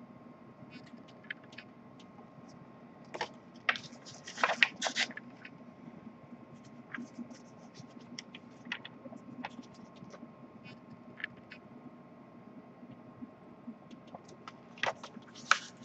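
Paper booklet being handled and its pages turned: short bursts of paper rustling and scraping, loudest about four to five seconds in and again near the end, with scattered light ticks in between.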